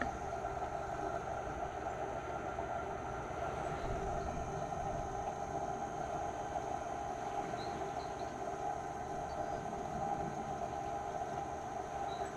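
A steady mechanical drone that runs without a break, with a few faint, short high chirps about two-thirds of the way in and near the end.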